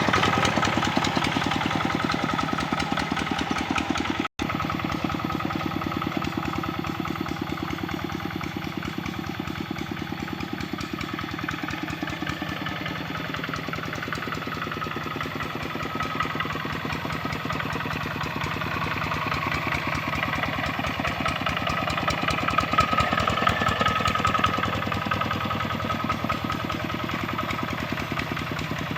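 Kubota RD65 single-cylinder diesel engine of a two-wheel hand tractor running steadily under load while pulling a harrow through a paddy field, with a rapid, even firing beat. There is a split-second gap in the sound about four seconds in.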